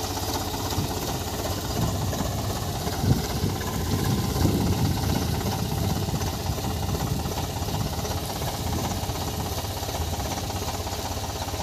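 Eicher 485 tractor's three-cylinder diesel engine running steadily at low revs while it pulls a tined implement through tilled soil, with a deeper rumble swelling briefly around the middle.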